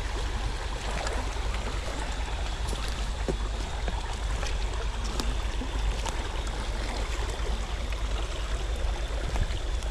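Small creek's water running steadily, with a few faint clicks.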